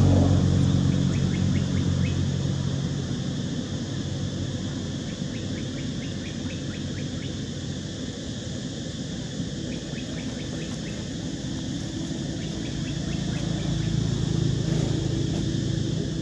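Outdoor ambience of a steady, high insect drone with a low motor hum beneath it. The hum is strongest at the start, fades through the middle and builds again near the end.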